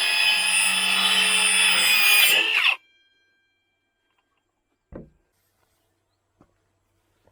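Worx WU533 cordless circular saw cutting 12 mm plywood, a steady whine over the cutting noise, which stops abruptly a little under three seconds in. A single dull thump follows about two seconds later.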